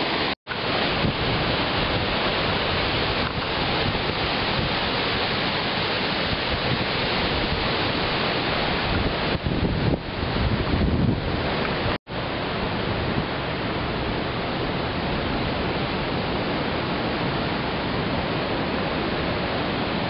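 Pacific surf breaking on a sandy beach, mixed with wind buffeting the microphone, a steady even noise. A gust about ten seconds in adds a louder low rumble. The sound drops out to silence for an instant twice, about half a second in and at twelve seconds.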